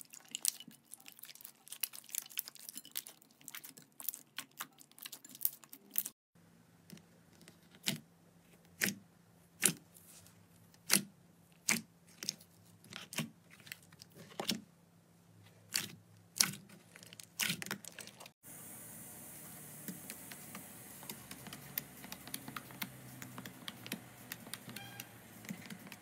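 Hands squeezing, stretching and poking slime, making sharp sticky pops and clicks. For a long middle stretch the pops come about once a second; near the end they give way to a soft hiss with faint clicks.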